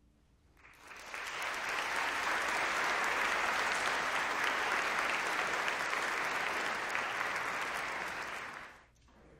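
Concert audience applauding: the clapping swells up within the first second, holds steady for about eight seconds, then dies away quickly near the end.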